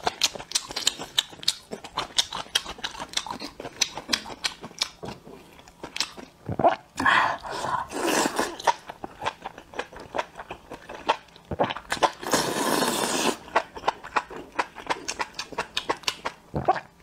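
Close-miked mouth sounds of a person eating spicy enoki mushrooms in chili sauce: many small wet clicks and crunches of chewing. There are two longer slurps, about seven and twelve seconds in.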